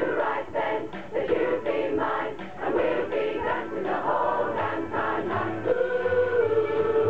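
A large rock choir, mostly women's voices, singing a pop song together.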